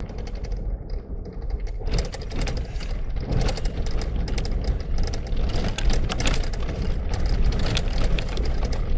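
Car driving on a rough unsealed dirt road: a steady low rumble of tyres and engine, with constant rattling and knocking from the bumpy surface starting about two seconds in.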